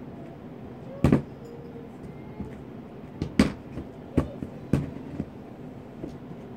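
Handling noise: a handful of sharp knocks and thumps as a towel is worked over carpet right beside the phone. The loudest comes about a second in and another around three and a half seconds in, with smaller taps in between.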